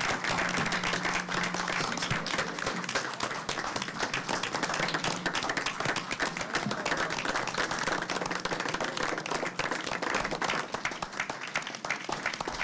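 Many people applauding together, a dense steady clapping that thins out a little near the end.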